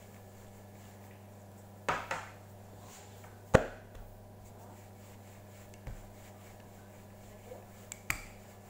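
A wooden rolling pin knocking and clacking on a wooden pastry board a handful of times while dough is rolled, the sharpest knock about three and a half seconds in. A steady low hum runs underneath.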